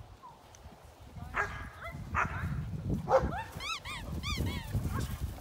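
German Shepherds barking sharply several times, followed by a quick run of high, arching squeaks.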